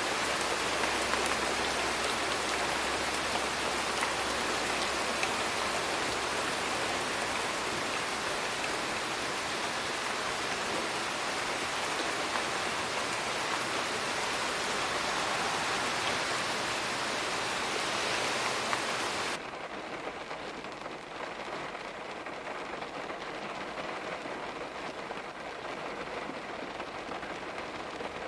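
Heavy rain falling, a steady dense hiss of drops. About two-thirds of the way through it cuts abruptly to quieter, muffled rain with the high hiss gone, the rain heard from indoors.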